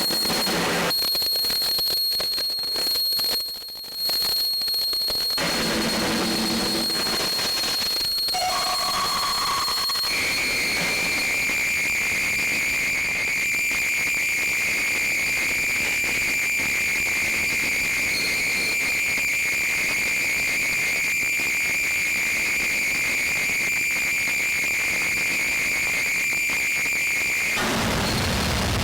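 Experimental noise music: a harsh hiss carrying a piercing, steady whistle-like tone, which gives way about ten seconds in to a lower sustained whistling tone. The tone cuts off suddenly near the end, leaving a denser, rumbling noise.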